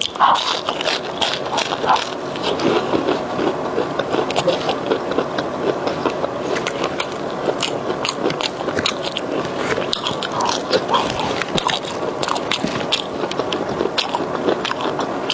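Close-miked chewing of a soft bread roll and French fries, with many small clicks of the mouth and no talking.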